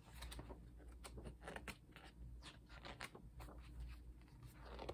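Faint rustling and light taps of photobook pages being handled and turned, scattered irregularly.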